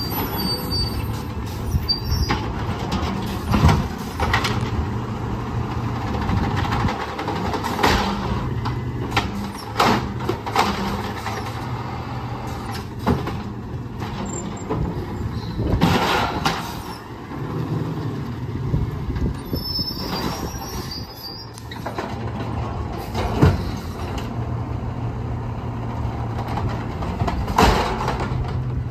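Autocar ACX natural-gas automated side-loader garbage truck running at the curb while its hydraulic arm grabs, lifts and dumps trash carts. A steady engine hum goes on throughout, broken by several clanks and bangs as carts are shaken and slammed at the hopper, the sharpest about two-thirds of the way through.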